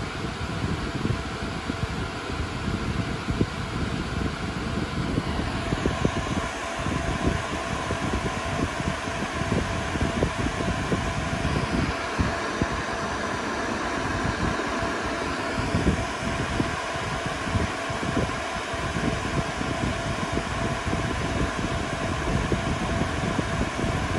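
Cooling fans of a Dell Compellent SCV2020 storage array running with a steady whir: an even rush of air with a few faint steady tones in it, over an uneven low rumble.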